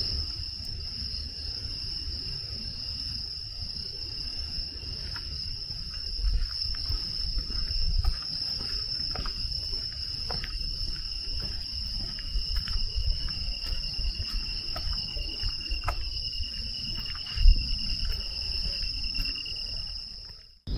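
Night insects singing in a continuous chorus at two steady high pitches. Occasional soft clicks and low thumps sound underneath, the loudest thump coming near the end.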